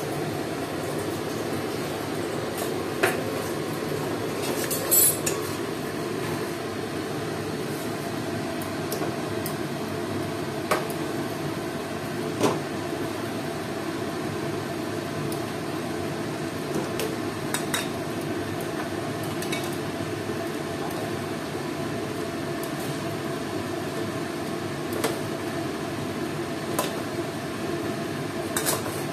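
Metal spatula and chicken pieces clinking and knocking against a steel kadai, a few scattered sharp taps, as raw chicken is added one piece at a time to masala. Under it runs a steady hiss.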